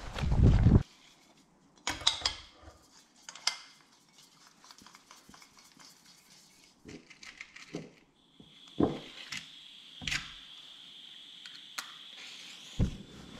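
Cookware and cutlery handled for a meal in a small hut: scattered clinks and knocks of pots and utensils. A steady high whine joins about eight seconds in. Before that, a short burst of walking noise cuts off abruptly under a second in.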